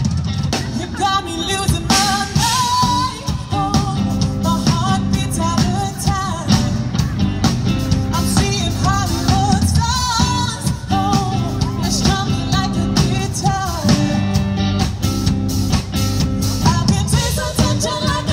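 A live band playing a rock-pop song, with a lead vocal over a steady drum beat.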